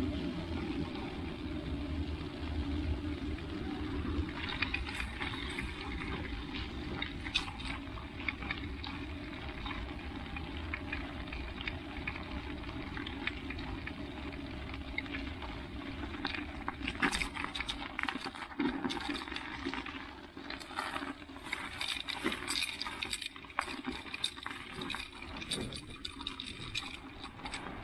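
Bicycle riding on studded tyres: a steady hiss and rumble of tyres on wet, slushy pavement, giving way about halfway through to scattered crunching clicks as the tyres roll over snow.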